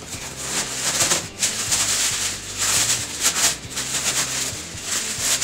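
Brown kraft packing paper crinkling and rustling in uneven bursts as it is pulled and torn off a long black intake tube.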